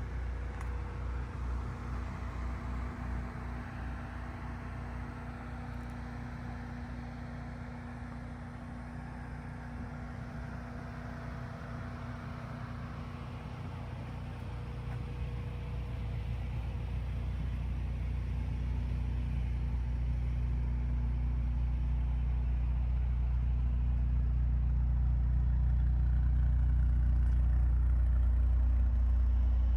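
2023 Mercedes-AMG C43's four-cylinder engine running steadily without revving, a low rumble that grows gradually louder over the second half.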